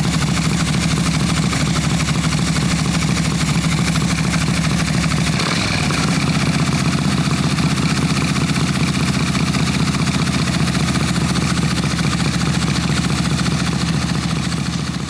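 Harley-Davidson EVO Big Twin's air-cooled V-twin engine running steadily at a super high idle on a freshly installed Lectron HD carburetor, an idle the idle screw cannot bring down on the carb's factory settings. The note changes briefly about five and a half seconds in, and the sound fades out near the end.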